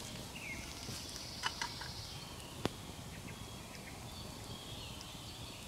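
Quiet outdoor evening ambience: a faint high buzz from about half a second in, lasting under two seconds, and a few soft scattered clicks.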